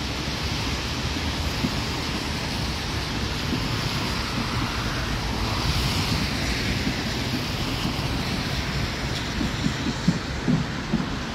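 RA2 diesel multiple unit approaching on the rails: a steady low rumble under wind noise on the microphone, with short knocks starting near the end as its wheels draw closer.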